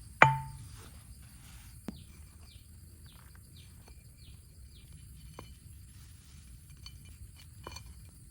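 A sharp knock with a brief ringing tone, followed by a run of faint falling chirps, about two a second, and a few scattered clicks over a steady high insect drone.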